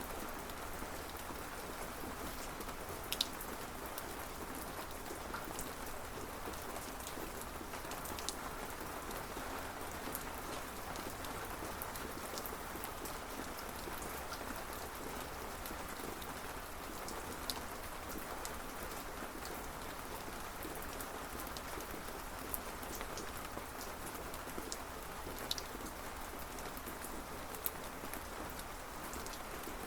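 Steady rainfall on a surface, an even hiss with scattered sharp drip ticks, a louder one about three seconds in.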